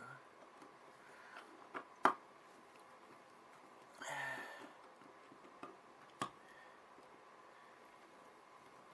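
A few sharp clicks and taps of hand tools working on a painted-over wall light switch and its plate, the loudest about two seconds in and another about six seconds in, with a brief scuffing noise around four seconds.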